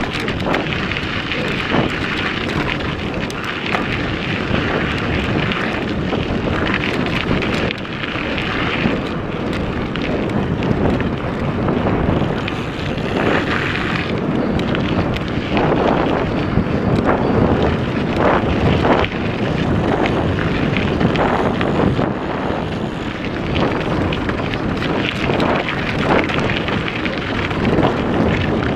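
Wind rushing over the microphone of a camera riding on a mountain bike, with the tyres rolling over a dirt trail and the bike knocking and rattling over bumps.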